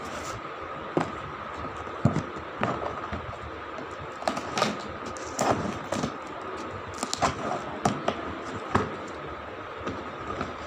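Cardboard shoe box being handled and opened: irregular knocks, scrapes and rustles of the box, its lid and the wrapping paper inside, over a steady faint hum.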